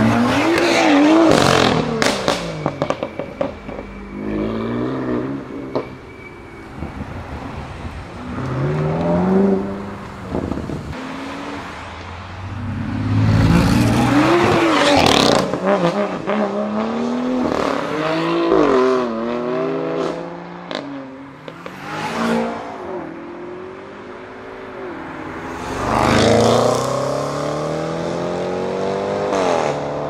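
Several sports cars accelerate away one after another, each engine revving up and dropping back at the gear changes. Sharp exhaust pops and crackles come in between the pulls.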